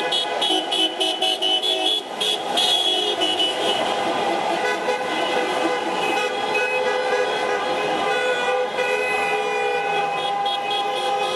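Many car horns honking at once in slow city traffic, sounded by drivers in a protest motorcade: quick repeated toots in the first few seconds, then long overlapping held blasts.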